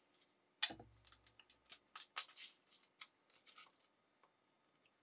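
Flat rainbow ribbon cable being handled and laid out on a cutting mat for measuring: one sharp knock less than a second in, then a run of short scratchy rustles and clicks that dies away after about four seconds.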